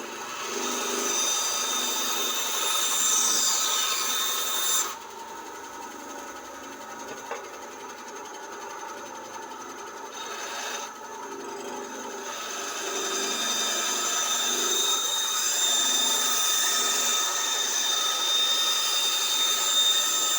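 A power tool running as it shapes a knife handle of wood, antler and micarta, with several steady high-pitched whining tones. It cuts off abruptly about five seconds in, leaving a quieter steady sound. It starts again about eleven seconds in and builds back up.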